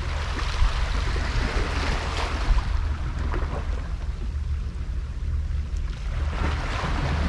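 Wind buffeting the microphone in a steady low rumble, over sea waves washing against the rocks of the breakwater.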